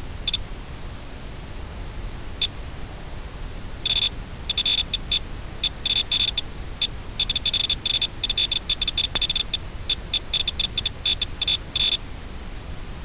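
Short high-pitched electronic beeps in rapid, irregular clusters over a steady hiss. There are a couple of single beeps in the first few seconds, then dense runs of beeps from about four seconds in until near the end.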